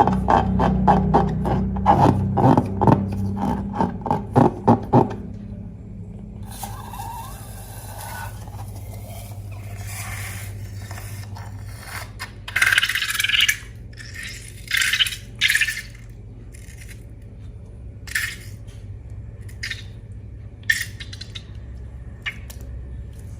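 Scraping and rubbing of slime-making materials being handled, quieter scattered scrapes with a few louder ones in the middle. For about the first five seconds a loud rhythmic, pitched clicking runs over a steady low hum.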